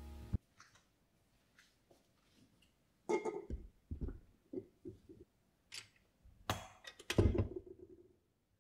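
Stainless steel bowl of a KitchenAid stand mixer being handled and twisted into place on the mixer base: scattered light clicks and knocks, a louder clunk about three seconds in, and a heavier clunk with a brief metallic ring about seven seconds in.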